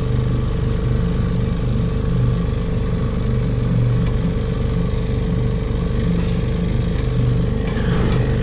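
A 6-horsepower outboard motor running steadily at trolling speed.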